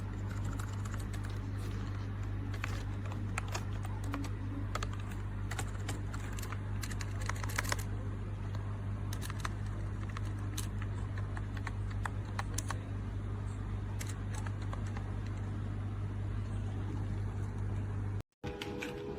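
Typing on a wireless keyboard with round keycaps: irregular, rapid key clicks, over a steady low hum. The clicking stops abruptly near the end.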